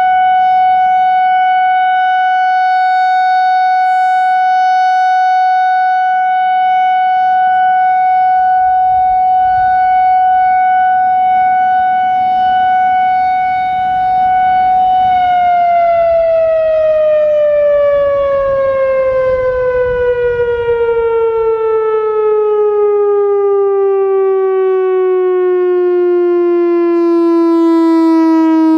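Whelen WPS-4004 electronic outdoor warning siren sounding its steady Alert tone, a single loud pitch with strong overtones. About halfway through, the pitch starts sliding smoothly downward and keeps falling as the siren winds down.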